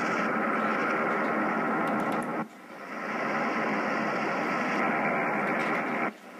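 Shortwave receiver audio from an Icom IC-735 transceiver in AM mode, tuned to a utility station near 6.4 MHz: a steady hiss of static and signal noise. It drops out suddenly twice, about two and a half seconds in and near the end, as the loop array's direction is switched.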